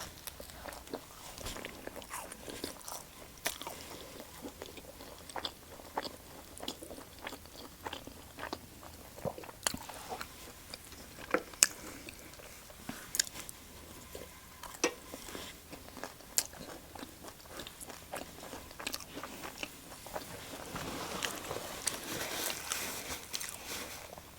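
Close-miked eating sounds: a person biting and chewing food, with many scattered sharp clicks and smacks, and denser chewing noise near the end.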